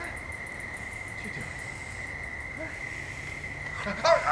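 Steady night-time insect trill, one unbroken high tone over a faint hiss. Near the end a person starts crying out in a wavering voice.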